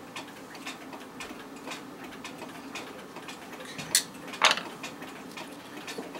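A pendulum clock ticking steadily about twice a second, with two sharp clicks about four seconds in, the second louder, as the clock dial's last screw is worked out and the dial is handled.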